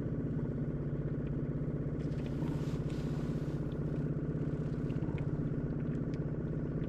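Small outboard motor on a canoe running steadily at low trolling speed, a constant engine hum with a fast even flutter.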